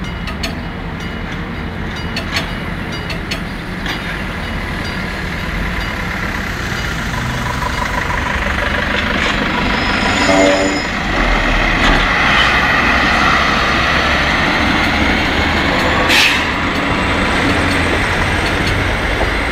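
Level-crossing warning bell ringing steadily while a diesel railcar approaches and rolls over the crossing. A short horn blast sounds about ten seconds in, and the engine and wheel noise then grow louder as it passes, with one sharp clack near the end.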